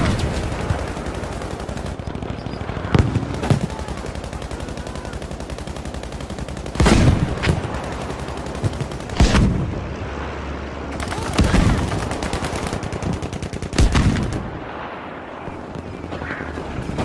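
Battle sound effects: steady, rapid machine-gun fire with about six loud, heavy blasts a few seconds apart, some trailing off in a low rumble.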